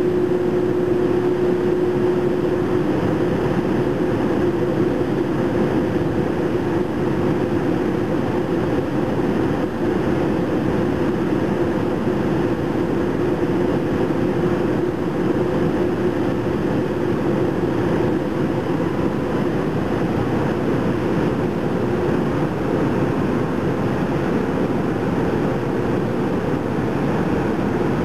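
JR Freight EH200 electric locomotive's on-board equipment running at close range: a loud, steady whir with a constant hum.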